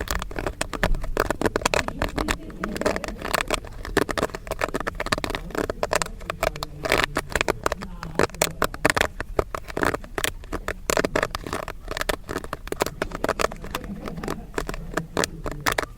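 Popcorn popping: a dense, irregular stream of sharp pops, many per second, at a steady pace.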